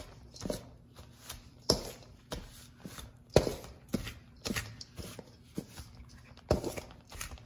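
Mixing utensil working through a crumb topping of flour, oats, brown sugar and butter cubes in a stainless steel bowl, cutting the butter in until it is crumbly. About a dozen irregular strokes, roughly one and a half a second, each a short scrape against the metal bowl.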